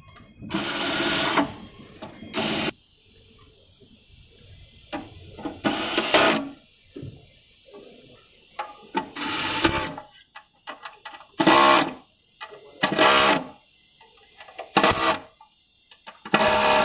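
Electric screwdriver whirring in short runs, about eight times, as it drives screws into the scooter body.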